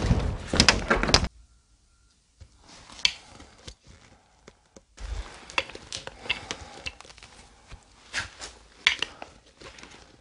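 Loud clattering that cuts off suddenly about a second in, then scattered knocks, clicks and rustling handling noise in a small room.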